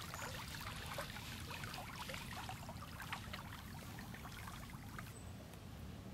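Floodwater flowing in a strong current: a steady rush with many small irregular splashes and trickles.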